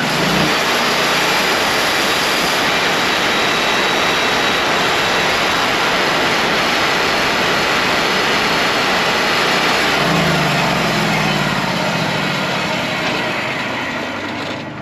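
Wood-Mizer LT40 portable sawmill running under load, its engine and band blade making a loud, steady noise that eases off near the end.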